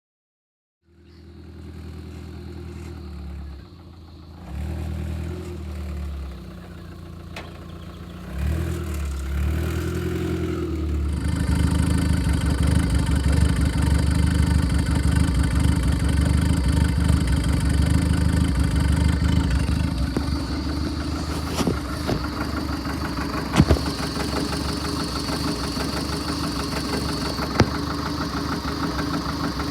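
Engine of an old Clarktor tow tractor running, its revs stepping up a few times over the first ten seconds, then running steadily faster before easing off about twenty seconds in. A few sharp knocks near the end.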